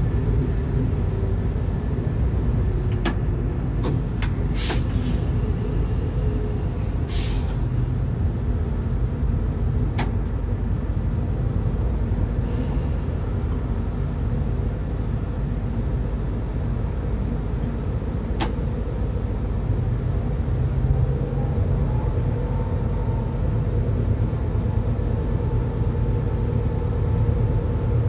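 Diesel locomotive running steadily at speed, heard from inside its cab: a continuous low engine and wheel rumble, with two short hisses and a few sharp clicks.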